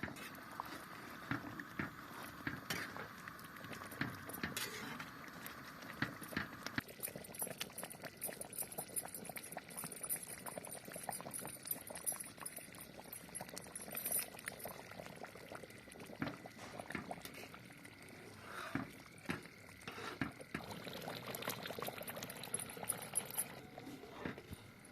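Chicken masala curry bubbling as it simmers in a cooking pot, with frequent light clicks and knocks. A steady hiss stops about seven seconds in.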